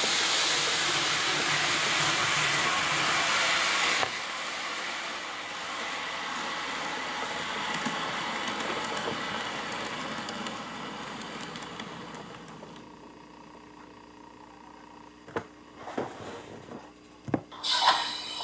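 Train pulling in and slowing to a stop. A steady rushing running noise drops suddenly about four seconds in and then fades away over the next ten seconds. A few sharp clicks follow, then a short burst of hissing near the end as it halts.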